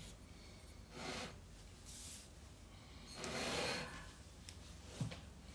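A few soft rustles from a person moving at a desk, the longest and loudest about three seconds in, then a small click near the end.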